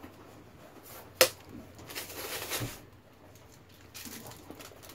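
Packing tape being cut with a knife and peeled off a fishing buoy: a sharp click about a second in, then a short tearing rasp, and lighter scratching near the end.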